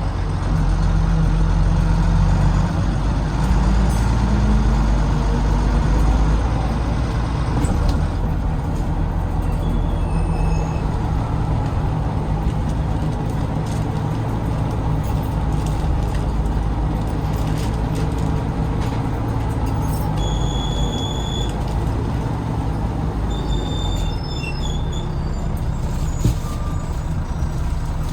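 Volvo B9TL double-decker bus's Volvo D9B diesel engine running under load as the bus drives, its pitch rising over a few seconds near the start and then holding steady. Short high beeps sound about ten seconds in, again around twenty seconds, and once more a few seconds later.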